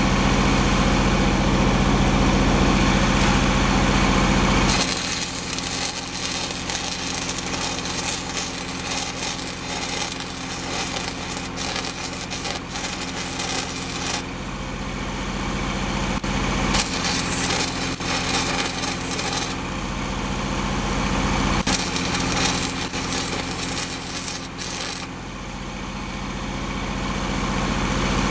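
Stick (arc) welding on heavy steel: the arc crackles and sizzles in three runs starting about five seconds in, with two short breaks, over the steady running of an engine that comes up louder again near the end.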